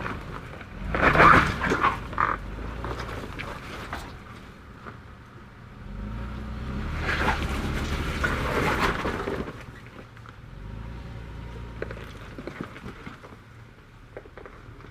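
Toyota 4Runner's engine pulling under load as it crawls up a trail obstacle, swelling louder twice, with a loud burst of noise about a second in.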